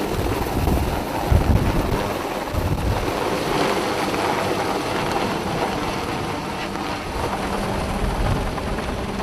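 UH-1Y Venom helicopter hovering overhead with a sling load, its rotor noise mixed with wind buffeting the microphone. A steady low hum comes in about seven seconds in.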